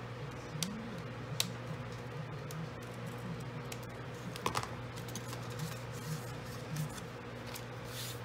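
Small spring-loaded craft snips cutting cardstock: a few scattered sharp snips, the sharpest about a second and a half in and about halfway through.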